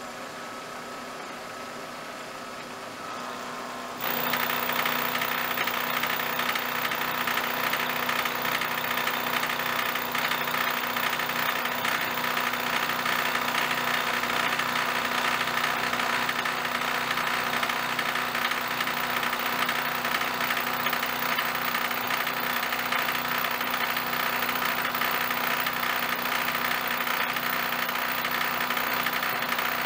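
Vertical milling machine running with a 3/4-inch end mill in the spindle; about four seconds in it gets much louder and stays steady as the cutter bites into the edge of the metal bar in the vise, a continuous milling cut with a steady whine.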